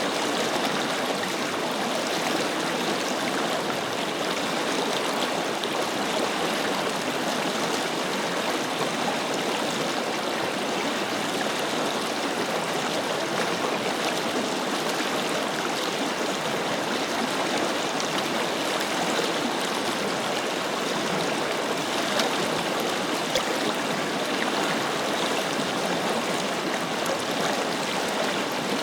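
Forest river flowing steadily: a continuous rush of water over rocks with fine splashing and gurgling.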